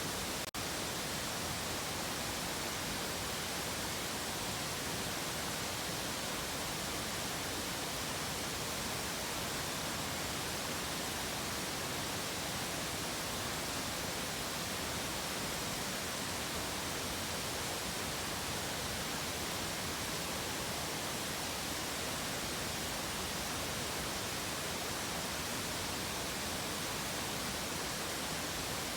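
Steady rushing of a large waterfall, an even noise with no let-up. The sound drops out for an instant about half a second in.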